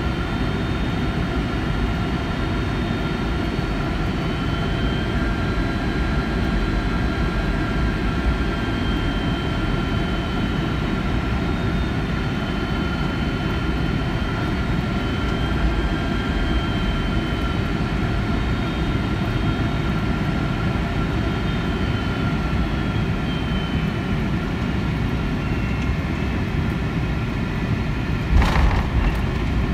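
Cabin noise of a Boeing 757-300 with Pratt & Whitney PW2040 turbofans on final approach: a steady rush with faint whining tones that drift in pitch. Near the end comes a thump, then a louder low rumble as the main gear touches down and rolls on the runway.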